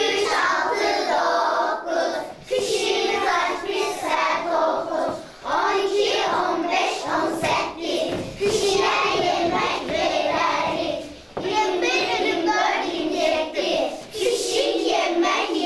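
A class of young children singing together in chorus, accompanied by hand clapping.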